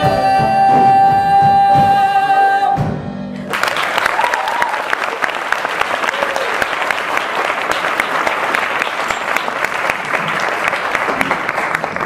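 A man and a woman hold the final sung note of a duet with instrumental accompaniment, cutting off after nearly three seconds. A moment later an audience breaks into sustained applause.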